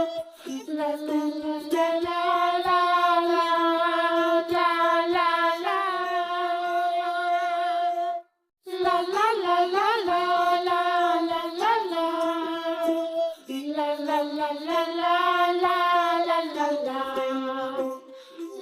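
Background music: a high, child-like voice singing a children's tune in long held notes, breaking off briefly about eight seconds in.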